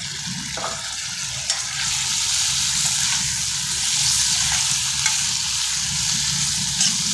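Meat and spices sizzling as they fry in oil in a cooking pot, with a few light clicks of a stirring spoon against the pot.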